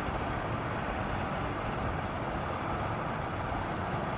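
Steady road and wind noise of a vehicle driving along a highway.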